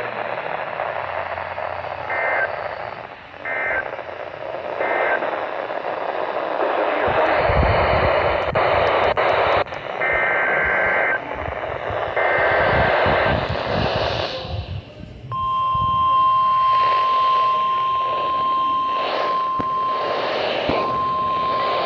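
NOAA Weather Radio receiver hissing with static, broken by several short, shrill two-pitch data bursts (SAME alert codes). About two-thirds of the way in, the steady 1050 Hz weather-radio warning alarm tone starts and holds, dropping out into static now and then near the end.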